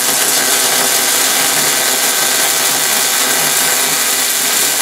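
MIG welder laying a continuous weld bead on the steel tab-and-slot joints of a welding-table leg: the arc running steadily, without a break.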